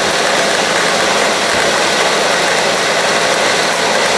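Bosch 450 W stand mixer running steadily, its beaters whisking batter in the plastic bowl: an even motor whir with a low hum.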